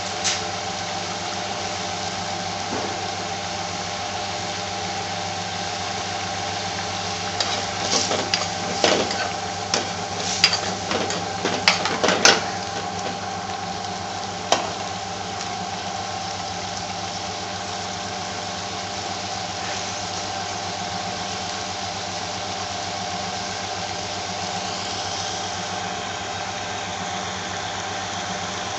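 Curry simmering in a metal pan over a steady hum. About eight seconds in, a metal spoon clatters and scrapes against the pan for several seconds as the curry is stirred, with one more knock a couple of seconds later.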